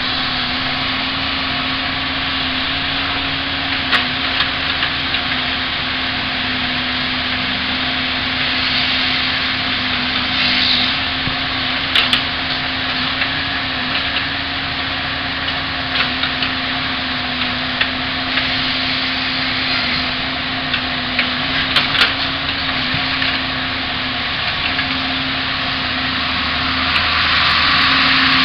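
Heavy diesel logging machinery running steadily, a constant engine drone with a strong high hiss. Sharp cracks and knocks come about 4, 12, 16 and 22 seconds in as a harvester processing head grips, feeds and delimbs radiata pine stems.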